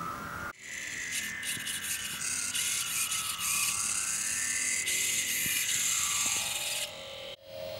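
Electronic drone and hiss run through a flanger effect, with a slow sweep that rises and then falls in pitch. It cuts out sharply about half a second in and again near the end.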